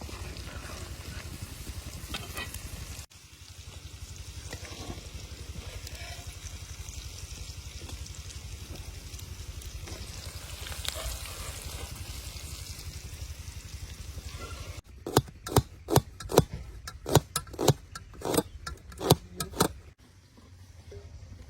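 Chicken gizzards frying in a pan with a steady sizzle. About 15 seconds in, the stirring ladle knocks sharply against the pan about a dozen times in quick succession.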